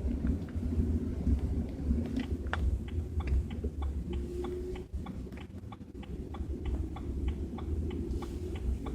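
Low, steady rumble inside the cabin of a moving BMW 320i, the strange rumble the owner hears at 30–40 km/h. From about two seconds in, the turn-signal indicator clicks at about three ticks a second.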